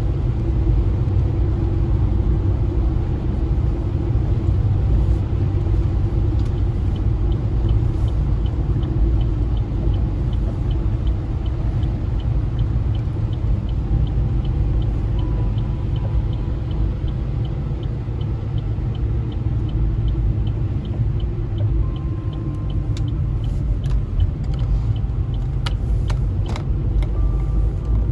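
Steady low rumble of a car driving along a snowy road, heard inside the car. A light, quick, regular ticking runs through the middle, and a few sharper clicks come near the end.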